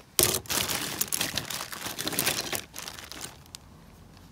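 A bag of knives crinkling loudly as a hand rummages through it. It starts suddenly a fraction of a second in and drops to quieter handling after about two and a half seconds.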